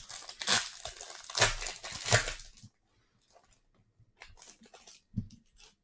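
A 2022 Bowman Baseball hobby pack's wrapper being torn open and crinkled, in loud rustling bursts over the first two and a half seconds, followed by faint scratchy handling of the cards.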